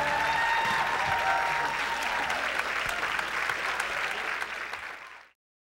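Audience applauding at the end of a live fiddle tune, with the last notes of the band dying away at the start. The applause fades and then cuts off abruptly about five seconds in.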